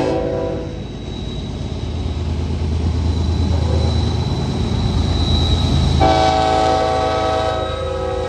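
BNSF freight train rolling slowly with its brakes squealing: a loud, steady chord of squealing tones that fades out just after the start and cuts back in abruptly about six seconds in for a second and a half. Between the squeals a thin high whine sits over the steady low rumble of the train.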